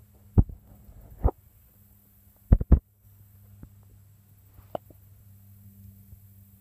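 Four short low thumps, two of them close together about two and a half seconds in, then a lighter click, over a faint steady hum.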